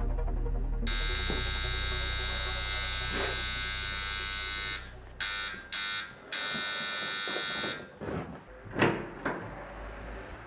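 Electric door buzzer ringing: held for about four seconds, then pressed again in two short bursts and one longer one. A few dull thuds follow near the end.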